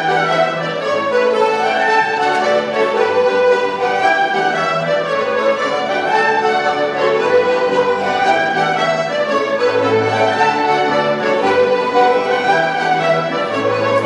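A large ensemble of folk musicians playing a jig together: many fiddles carrying the melody in unison, with accordions and whistles or flutes, and low held bass notes underneath. The playing is continuous and even in loudness.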